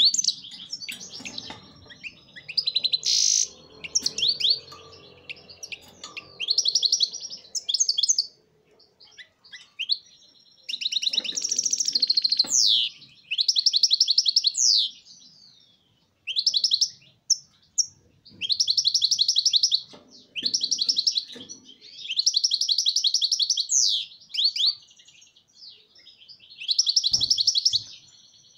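Caged European goldfinch singing: fast, high twittering and trilled phrases of one to two seconds each, repeated with short pauses.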